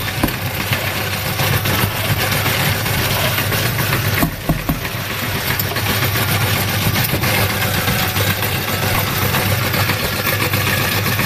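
Motorised meat grinder running steadily: a constant motor hum with a dense churning noise over it, and a brief dip with a low thump about four seconds in.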